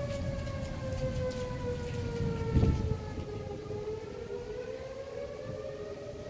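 Outdoor tornado warning siren wailing: a steady tone that slowly falls in pitch, then rises again near the end, with a second tone drifting the other way. A brief low thump about two and a half seconds in.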